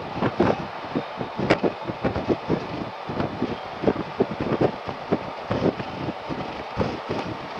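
Wind buffeting the microphone on a motorcycle at highway speed: an uneven rush of short gusts, several a second, over steady road noise.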